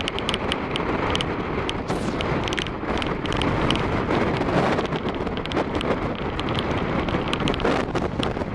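Typhoon-strength wind buffeting the microphone: a dense rushing noise that swells and eases with the gusts, with many short crackles through it.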